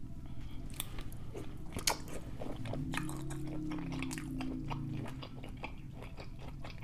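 Close-miked chewing of seafood boil, with many small wet clicks and smacks from the mouth and a sharper click about two seconds in.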